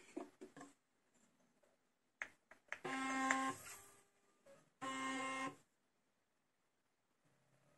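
A few light clicks as the powder pan is set on the scale, then the AutoTrickler V3 powder dispenser's motor whirs in two short bursts, about three and five seconds in, dispensing a powder charge into the pan.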